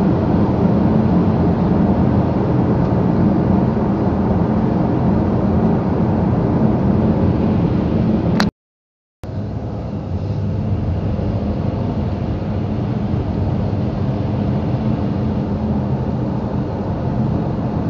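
Car interior noise while driving: a steady drone of engine and tyres on the road. A little past the middle it drops out to silence for under a second, with a click at the break, and comes back slightly quieter.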